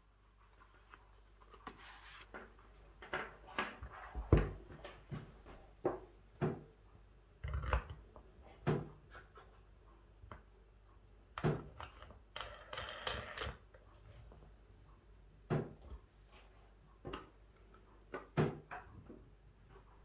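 Irregular clicks, knocks and rustles of table-lamp parts being handled and fitted back together: a plastic base, a perforated metal shade and a glass bulb. The loudest knock comes about four seconds in.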